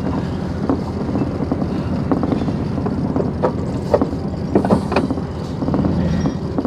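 Vehicle engine running at low speed while backing up, with a steady low rumble and occasional knocks and rattles.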